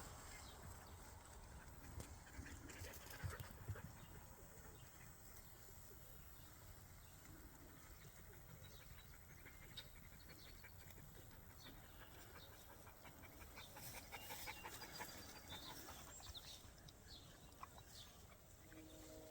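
Near silence: faint outdoor ambience, with a few soft knocks early on and scattered faint high chirps later.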